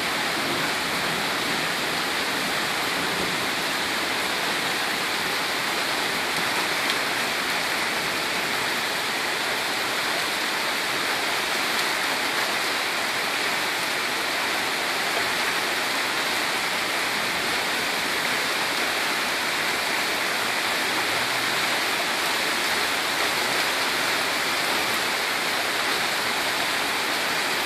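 Heavy downpour with floodwater running in the street: a steady, dense hiss of rain and rushing water.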